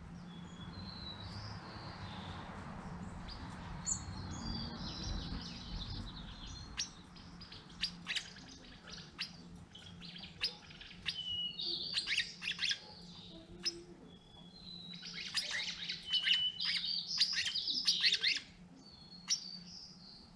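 Several songbirds chirping and calling in quick, overlapping bursts, busiest about twelve seconds in and again from about fifteen to eighteen seconds. A low rumble sits under the first seven seconds.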